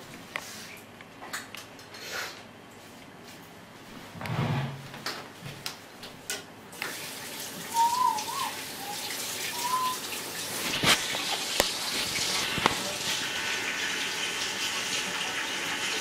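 Kitchen tap running steadily into the sink, turned on about seven seconds in, after a few light clicks and knocks.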